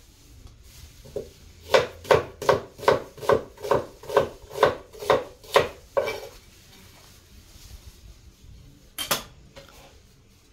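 Kitchen knife chopping an onion on a wooden cutting board: about eleven even chops, two or three a second, then one louder knock near the end.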